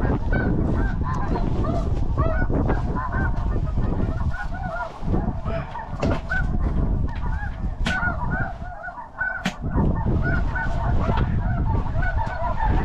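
A dense chorus of snow goose calls: many short, overlapping yelps, over a steady low rumble with a few sharp clicks and rustles.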